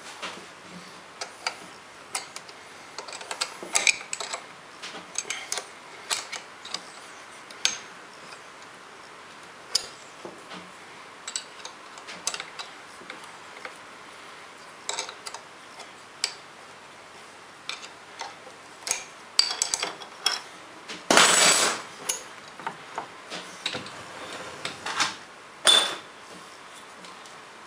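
Irregular metallic clicks and taps from a ball handle on a lathe's tool post lever being worked by hand, with a louder scraping rattle lasting about a second roughly two-thirds of the way through.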